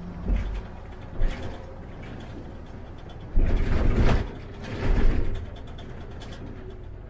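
City bus driving, a steady low engine and road noise from the cab, broken by two loud rushing noises about three and a half and five seconds in, with a couple of light knocks near the start.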